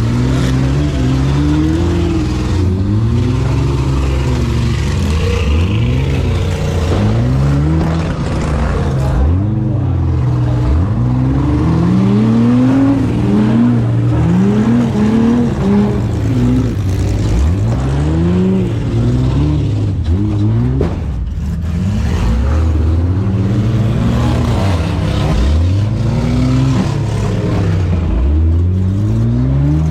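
Demolition derby van engines revving up and down over and over, several engine notes overlapping, loud and continuous.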